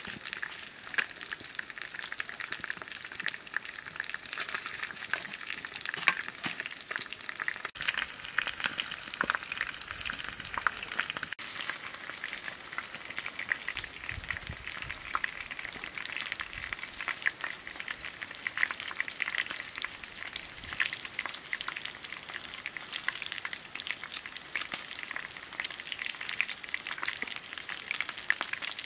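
Eel grilling on a clay pan over a wood fire, with a steady sizzle and crackle.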